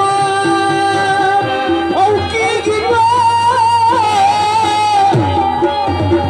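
Live Pashto folk music: a singing voice holds long, wavering notes over the band, and hand-drum strokes come back in about five seconds in.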